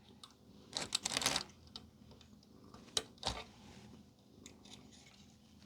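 Light clicks and taps of small screws and parts being handled during hand reassembly of an electronic device, with a short cluster of rattles about a second in and a sharp click near the end.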